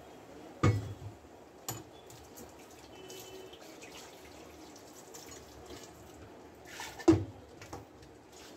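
Masala paste cooking in a pressure-cooker pan, with a faint steady bubbling and dripping. Two loud thumps, about a second in and near the end, stand out above it.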